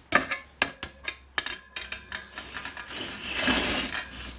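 Metal wire rack being handled, clinking and knocking several times, then a scraping rattle about three seconds in.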